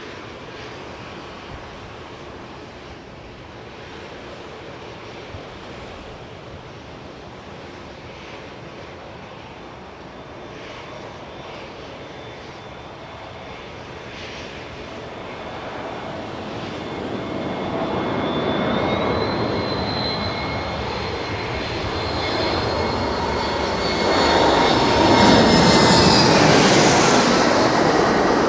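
Iberia Express jet airliner on landing approach, its engine noise building from faint to loud over the second half as it nears and passes. Steady whining engine tones ride on top and drop in pitch near the end as it goes by.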